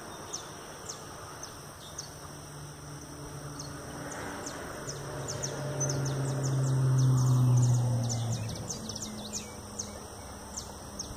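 A motor vehicle's engine passing: a low hum swells to its loudest about seven seconds in, then drops in pitch and fades. Insects tick and chirp rapidly throughout.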